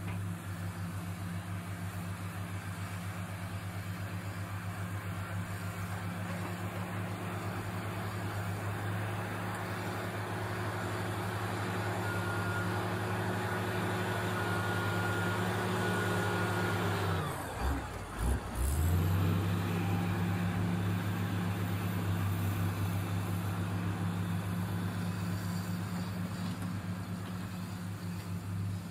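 Crawler bulldozer's diesel engine running steadily under load as it pushes soil, getting louder as it comes close. About two-thirds of the way in, the engine revs drop sharply for a second or so, then climb back to a steady run.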